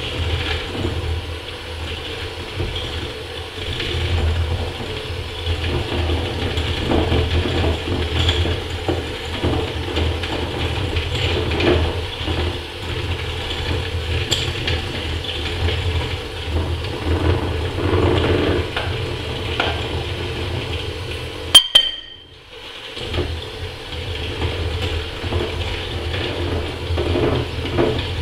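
Electric hand mixer running, its beaters whisking egg, sugar and flour batter in a glass bowl, with a steady motor hum. A little past two-thirds through there is a sharp click, and the mixer stops for about a second before running again.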